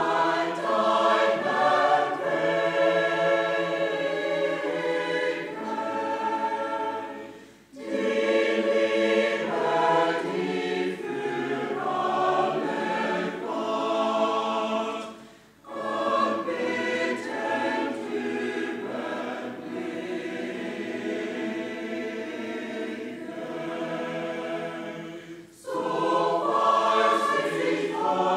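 Mixed choir of men's and women's voices singing a hymn, in phrases broken by three short pauses for breath.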